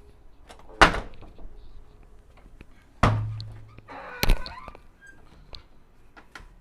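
Three loud, sharp knocks or thuds, about a second in, at three seconds and just after four seconds, with fainter clicks in between.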